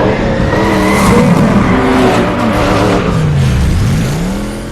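Car sound effect: an engine revving, with pitch sliding down and back up about four seconds in, and tyres squealing.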